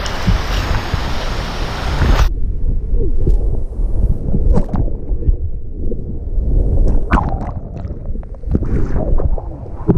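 Breaking surf and wind rushing on a waterproof action camera's microphone. About two seconds in, the sound cuts abruptly to a muffled sloshing of water close around the camera, with scattered sharp splashes.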